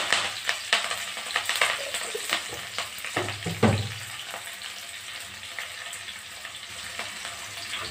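Chopped onion and fresh curry leaves sizzling in hot oil in a kadai, with sharp crackling pops from the curry leaves. The pops are dense for about four seconds, then thin out into a steadier, softer sizzle.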